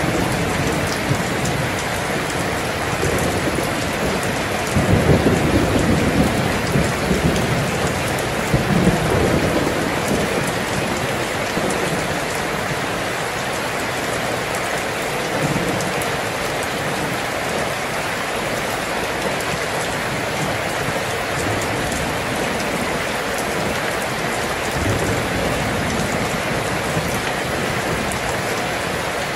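Steady rain, with low rumbles of distant thunder swelling about five seconds in and again near nine seconds, and fainter ones later.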